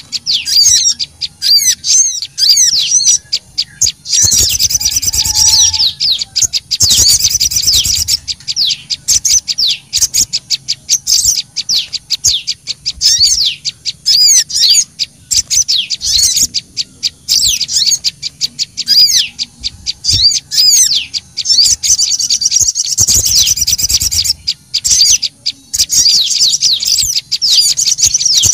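Bird-lure recording mixing sogon (sogok ontong) and prenjak calls: dense, rapid, high chirps and twitters with no break. Louder harsh chattering comes in about four, seven and twenty-three seconds in.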